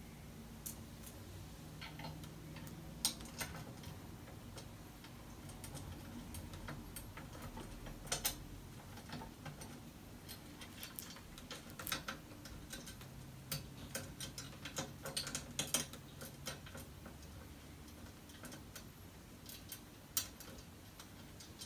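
Irregular light clicks and taps of small metal parts being handled on a clamp-on monitor mount at the back of a monitor.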